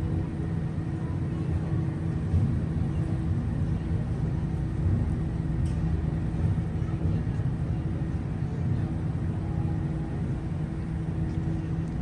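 Ferry's engines running with a steady low rumble and a constant hum.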